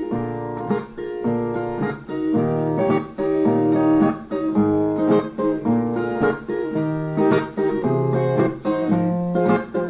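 Instrumental break: plucked viola caipira (Brazilian ten-string guitar) playing a quick melodic run over bass notes, with no singing.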